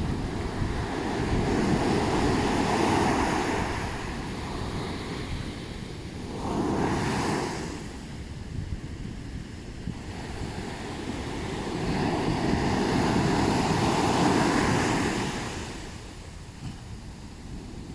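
Ocean waves breaking and washing up a sandy beach, rising and falling in surges. A long wash comes early, a short one about seven seconds in, and another long one from about twelve to fifteen seconds, after which the surf drops back.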